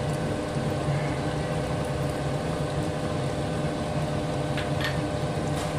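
A steady low mechanical hum over a faint hiss, unchanging throughout.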